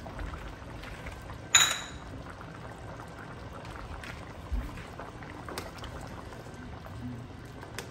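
Beef stew simmering and bubbling in an aluminum wok while a metal spoon stirs through it, with light scraping and taps. About a second and a half in, a sharp metal clink rings briefly, and a few fainter spoon taps follow.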